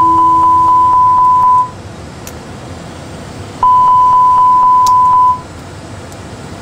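Airbus A320 simulator cockpit warning tone alerting to the dual engine flameout. It is a steady high beep sounding twice, each lasting about a second and a half to two seconds, and a lower tone sounds under the first. A low rumble runs underneath.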